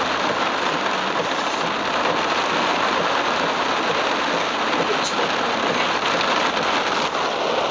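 Heavy rain pelting the car's roof and windshield, heard from inside the moving car as a steady, dense hiss.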